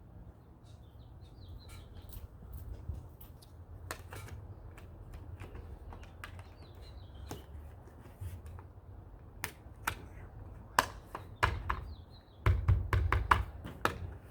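Sharp clicks and knocks of roof-rack parts and fasteners being handled and fitted, scattered at first and coming quickly one after another in the last few seconds, over a low steady rumble.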